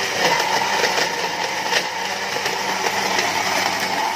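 Countertop electric blender running steadily at speed, grinding chilies, tomato, shallots, garlic and spices with oil into a wet spice paste.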